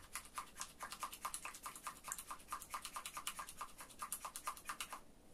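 A spatula stirring and scraping a soft aloe-gel cream around a small mixing bowl, in quick, even strokes of about six a second that stop near the end.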